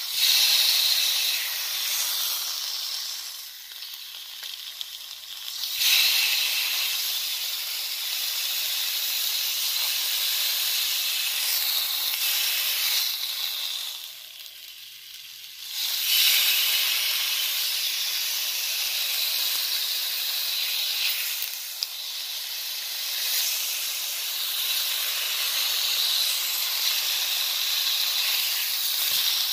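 Steak searing in a hot nonstick frying pan: a steady, high-pitched sizzle. It fades twice, about four and fifteen seconds in, while the meat is lifted with a spatula, and surges loudly each time the steak goes back down on the pan.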